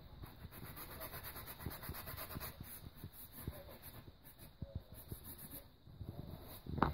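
A cloth with cream cleaner scrubbing the ceramic underside of a toilet cistern around the syphon hole: faint, rhythmic back-and-forth rubbing, with a short knock near the end.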